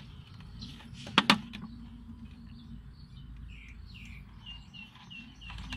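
Two sharp clicks just over a second in, then a bird chirping, ending in a run of short repeated high notes about four a second.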